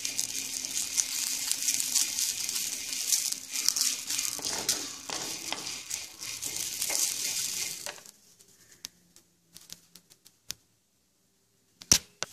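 Drumstick leaves and chana dal being roasted and stirred with a wooden spatula in a clay pot: a dense scratchy crackling and rattling that stops about eight seconds in. One sharp click comes near the end.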